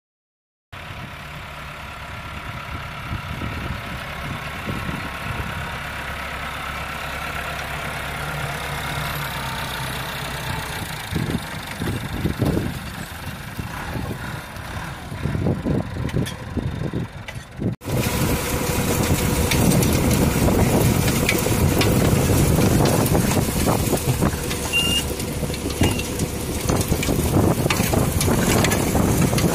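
Massey Ferguson tractor engine running steadily while pulling a maize planter across the field. About 18 seconds in the sound cuts and comes back louder and rougher, as if heard from closer to the tractor.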